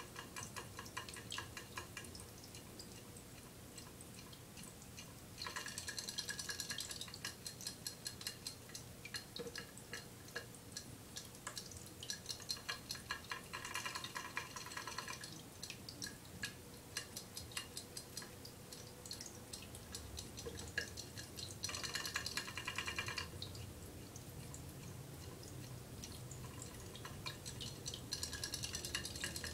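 Raindrop ceramic pet drinking fountain running: water trickling and dripping into its bowl as a steady patter of small drips. The sound grows louder four times, for a second or two each.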